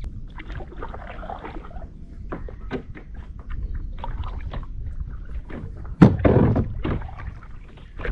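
Kayak being paddled: repeated small knocks of paddle and hull over splashing water. About six seconds in comes a loud, harsh retching heave from a dog vomiting in the kayak.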